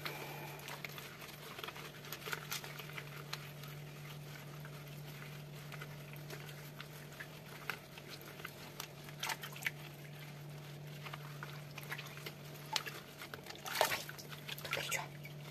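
Wet squelching and dripping as rubber-gloved hands stretch and knead hot, stringy caciocavallo cheese curd over a pot of hot water, with irregular small slaps and splashes and the loudest burst about 14 seconds in. A steady low hum runs underneath.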